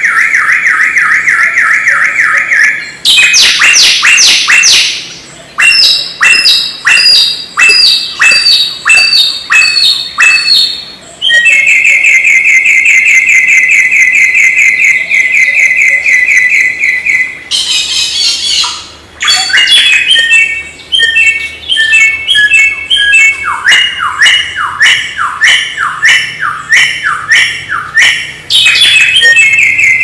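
A wild samyong songbird singing a long, varied song. It mixes buzzy trills held steady for several seconds with quick runs of repeated notes and fast downward-sliding whistles, and there is a brief harsh burst about two thirds of the way in.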